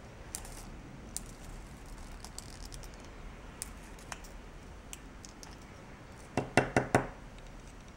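Coloured pencil being turned in a small plastic handheld sharpener, faint scraping and light clicks as the blade shaves the wood. About six and a half seconds in come four quick, loud knocks close together.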